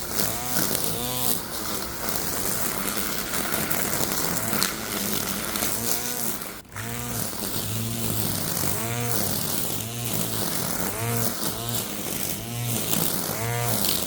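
Worx 20V cordless string trimmer running, its electric motor whine rising and falling over and over as the head sweeps back and forth through the grass, with a brief break about six and a half seconds in.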